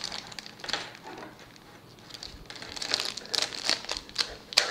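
Clear plastic packaging bag crinkling as hands work at it and scissors cut it open. It is sparse at first and busier in the second half, with a sharp crackle near the end.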